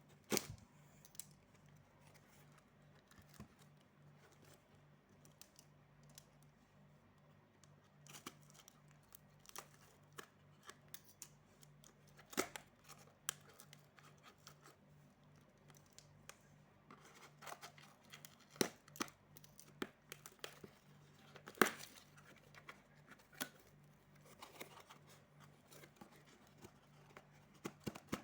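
A parcel being unwrapped by hand: packaging crinkling and tearing, with scattered sharp clicks and snaps, the loudest a few strikes about midway and again around two-thirds through.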